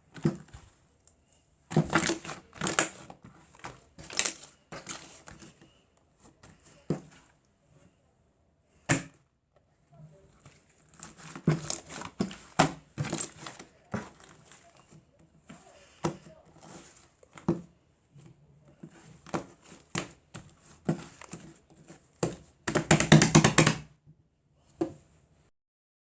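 Fluffy clay slime being squished and poked by hand, giving irregular bursts of crackles and clicks, with a longer run of rapid clicking near the end.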